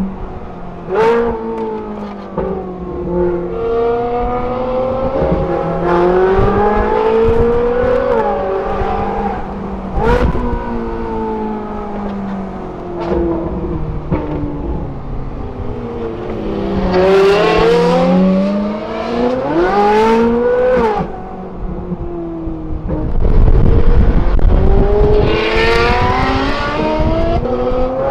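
Ferrari 458's V8 through a Kline Innovation aftermarket exhaust, heard from inside the cabin, revving up and dropping back again and again through gear changes. Several sharp cracks come at shifts.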